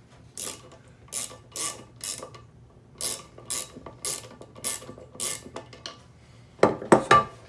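A small hand tool turning the screw in a frying pan's handle: a string of short, grating clicks, about two a second, in groups with short pauses, then a few louder knocks near the end. The screw is turning in threads that the owner suspects are stripped.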